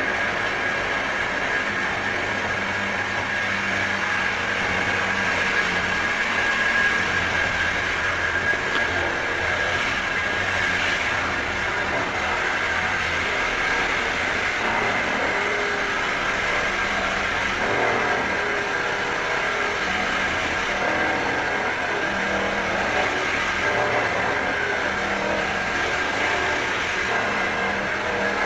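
Power drill running continuously with a steady high whine and a lower hum that shifts in pitch now and then.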